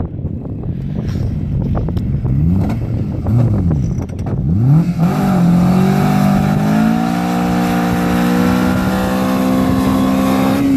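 Honda S2000 four-cylinder engine in a trials car, revved up and down in quick rises and falls for the first few seconds. It is then held at high revs, rising slightly, while the car barely moves up the grass slope with its wheels spinning.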